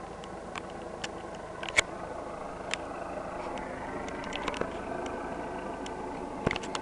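Helicopter engine droning steadily, with scattered sharp clicks over it.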